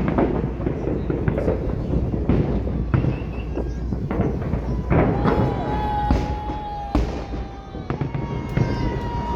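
Fireworks display bursting: a string of sharp bangs, several seconds apart, over a continuous rumble. Twice in the second half a long, steady, high tone is held for a second or more.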